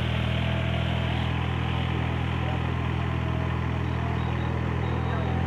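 Ride-on rice transplanter's engine running steadily at a constant speed.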